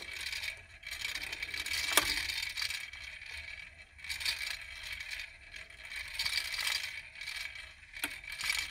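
Garrard 86SB synchronous belt-drive turntable running with its platter spinning, and a loose, uneven rattle like a set of marbles. The owner traces the rattle to something around the motor rather than the motor itself. There is a sharp click about two seconds in and another near the end.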